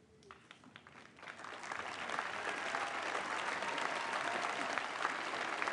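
Audience applause that starts as a few scattered claps and swells to steady, full clapping about a second in.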